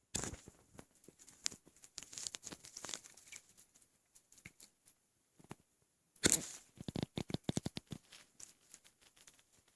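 Close-up body sounds of a belly full of milk: two sudden hiccup jolts, right at the start and about six seconds in, each followed by a run of quick crackling clicks.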